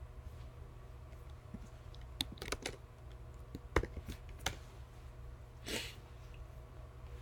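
Computer keyboard keystrokes: a quick cluster of clicks about two seconds in, then single, sharper clicks around four seconds in, followed by a short soft hiss, over a faint steady low hum.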